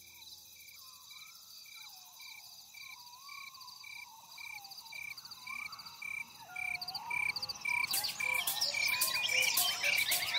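Soundtrack intro of repeating croaking and chirping calls: a high chirp about twice a second over wavering, gliding tones. It fades in and grows louder and busier about eight seconds in.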